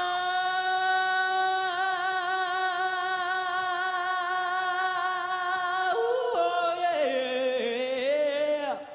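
A male singer holds one long note into a microphone, with vibrato setting in about two seconds in. Near the end his voice moves through several shorter notes, then breaks off.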